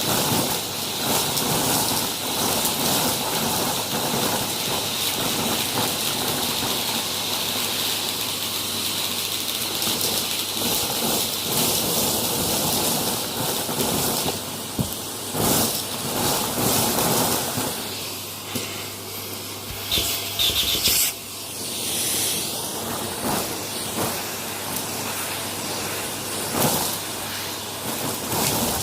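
Close-up crunching and crumbling of a brittle material, a dense, steady crackle with a few louder, sharper crunches in the second half.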